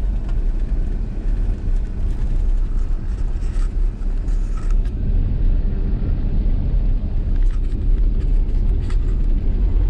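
Car road noise heard from inside the cabin while driving: a steady low rumble of engine and tyres, with a few light ticks mid-way and again near the end.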